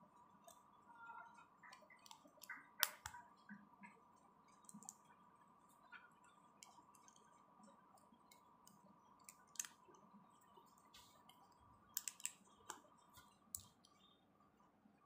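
Small plastic Lego pieces clicking and tapping as they are handled and pressed together: faint, scattered sharp clicks, the loudest about three seconds in and a quick run of several near twelve seconds.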